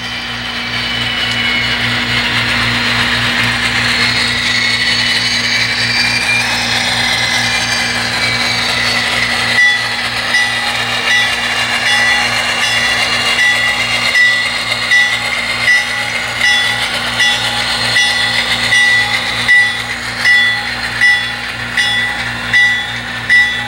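HO-scale diesel locomotives running on a DCC model railroad, their sound decoders playing a steady engine hum with a whine that rises and falls. From about ten seconds in, a locomotive bell rings steadily, about once a second.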